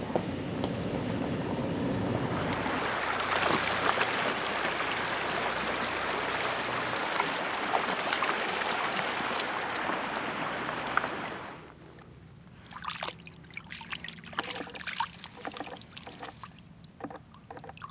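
A vehicle's engine running low at first, then a shallow rocky creek rushing and trickling steadily. About twelve seconds in the rush gives way to a much quieter stretch of scattered splashes and rustles as the dog wades into water through reeds.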